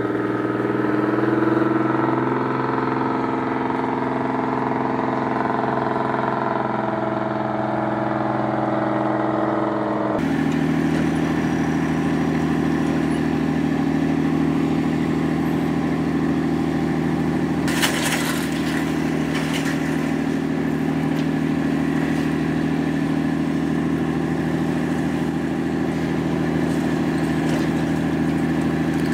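Ship's diesel engine running steadily: a drone made of several steady tones. About ten seconds in it changes abruptly to a lower, steadier drone with a rushing wash over it, and a few sharp clicks come a little before the twentieth second.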